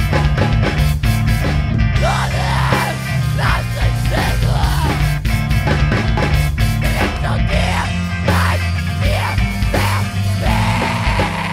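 Emoviolence band recording: loud distorted rock instruments and a drum kit, with yelled vocals over the top.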